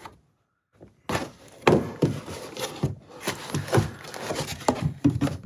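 Plastic building-block pieces and their cardboard packaging being handled, starting about a second in: a run of irregular clicks, taps and light knocks.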